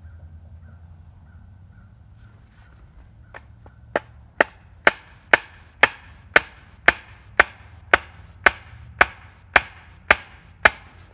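Axe blows on a wooden stake: about fourteen sharp, evenly spaced strikes, roughly two a second, starting about four seconds in.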